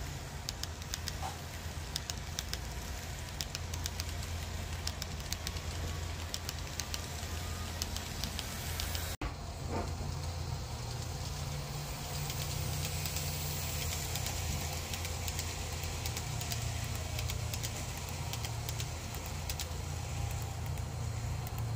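Model train running on a layout: a steady low motor hum with frequent light clicks of the wheels over the track joints. The sound drops out for an instant about nine seconds in, then the hum carries on.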